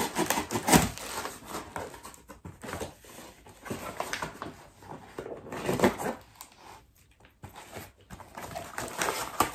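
Corrugated cardboard parcel box being pulled and torn open by hand: irregular rustling and ripping of cardboard and tape, with louder rips about a second in, near six seconds and near the end.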